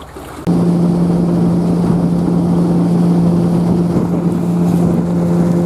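Boat's outboard motor running at a steady speed, a loud even hum that starts suddenly about half a second in, with wind and water noise around it.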